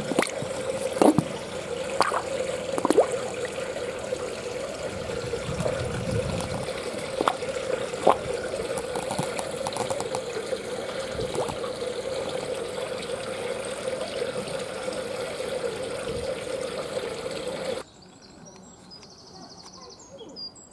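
Steady trickling, splashing water in a koi pond, with a few sharp splashes and slurps in the first eight seconds as koi mouth at the surface. The water sound cuts off about 18 seconds in, leaving faint bird chirps.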